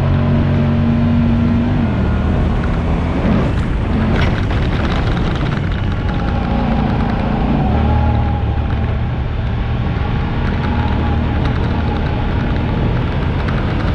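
Honda Pioneer 1000-5 side-by-side driving over sand dunes, its engine running under wind and sand noise. Background music with steady held bass notes that change every few seconds runs beneath it, and a rush of noise swells about four seconds in.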